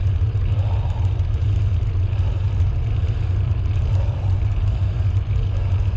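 Steady low rumble of wind buffeting the microphone and tyre noise from a bicycle being ridden along a path.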